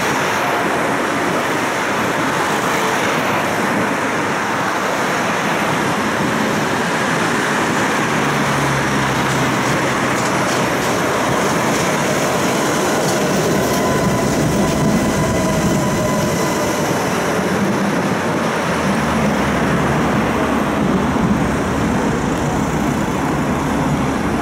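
Steady noise of busy city road traffic, cars passing close by, with a tram going by alongside in the middle.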